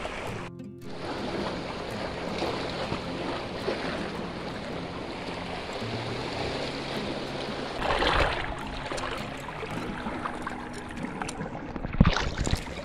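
Sea waves washing against a rocky shore, a steady surf noise with a louder swell about eight seconds in. Near the end comes one sharp knock as a knife blade meets the rock.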